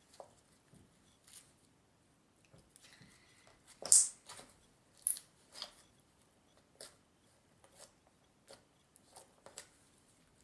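Crunchy foam-bead slime being squeezed and stretched by hand, giving scattered crackling clicks and pops, the loudest about four and five seconds in.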